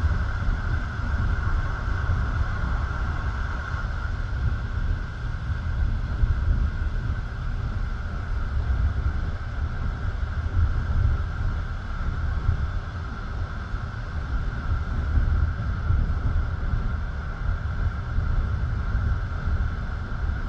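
Passenger train carriage running on the rails, heard from inside at the window: a steady low rumble with a constant higher hum and some wind noise.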